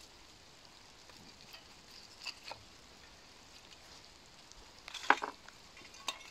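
Light rain hissing faintly, with a few short knocks and a brief clatter about five seconds in as gear is handled at a workbench.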